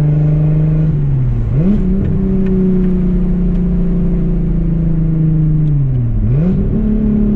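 Volkswagen Corrado's VR6 engine running under way at steady revs. The engine note dips and then climbs back twice, about a second and a half in and again near six seconds.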